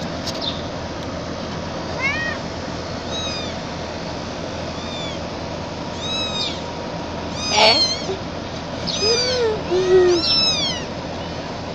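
Young gray-and-white kitten meowing loudly and repeatedly while being held, a run of short high-pitched cries that rise and fall in pitch, coming louder and closer together in the second half.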